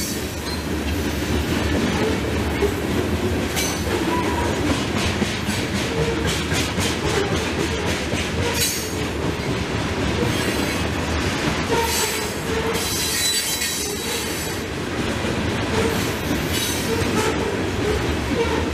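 Freight train of covered hopper cars rolling past close by: a steady rumble of steel wheels on rail, with repeated clacking and short squeals from the wheels here and there.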